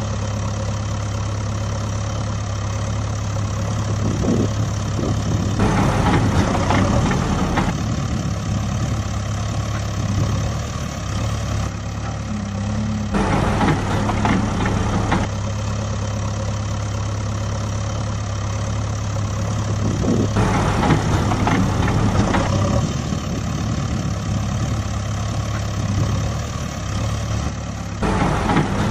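Engine sound effect of a heavy machine idling: a steady low hum, with a rougher, busier stretch of about two seconds roughly every seven and a half seconds, repeating like a looped recording.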